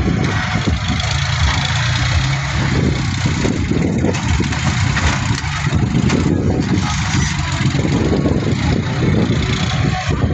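Diesel engine of a John Deere tractor loader running steadily.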